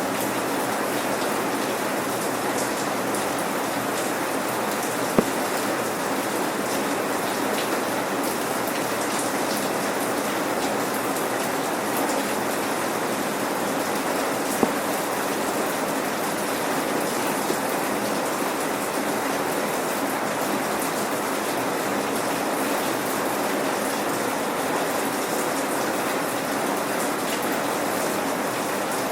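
Steady light rain, drops pattering on hard surfaces, with no thunder; a couple of louder single drop clicks stand out, one about five seconds in and another near the middle.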